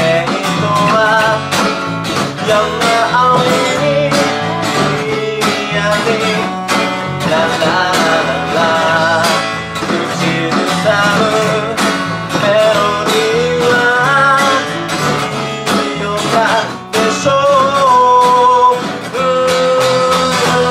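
A small band playing a song: strummed acoustic guitar, electric bass and a drum kit heard through an amplifier, with a man singing the melody over it.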